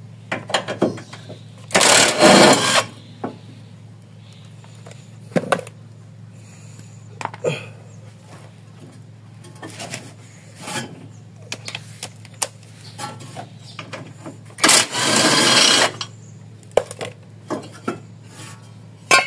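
Cordless impact wrench running in two bursts of about a second each, about two seconds in and again near fifteen seconds, undoing suspension bolts; short metallic clinks and clanks of tools and parts being handled come between.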